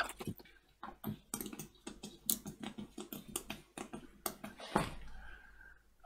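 Light, irregular clicking of small tactile push-button switches under the fingertips as they are pressed into and over a 4x4 hex keypad circuit board, with a soft bump near the end.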